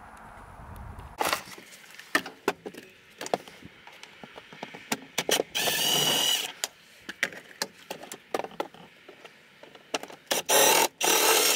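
Milwaukee Fuel cordless power tool running in short bursts as it backs out fasteners around the cab floor: briefly about a second in, for nearly a second around the middle, and twice more near the end. Sharp clicks and knocks of the tool and parts being handled come between the bursts.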